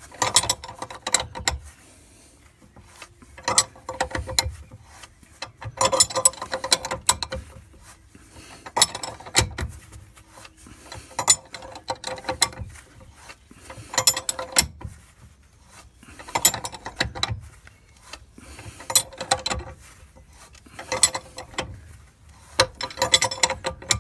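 Ratchet spanner clicking in short bursts, one about every two and a half seconds, with quiet gaps between, as it turns a nut down threaded bar to draw a cutlass bearing into its housing.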